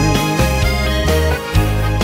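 Swedish dansband-style song playing: an instrumental stretch with no singing, held notes over a bass line and a steady beat.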